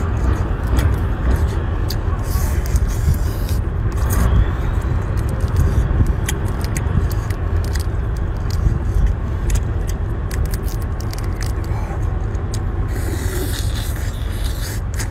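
Crustacean shell being pulled apart and cracked by hand, heard as scattered crackling clicks and scraping. Under it runs a steady low rumble.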